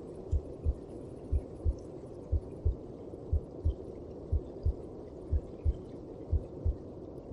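A mother's heartbeat as heard from inside the womb: deep lub-dub double thumps about once a second, with a steady low whooshing hum beneath.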